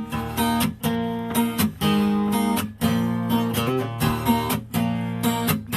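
Acoustic guitar strummed in a steady rhythm, chords ringing between strokes: the instrumental intro of a song before the singing comes in.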